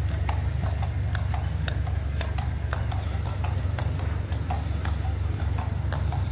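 A horse's hooves clip-clopping on a hard road at a walk, about two or three hoof strikes a second, over a steady low rumble.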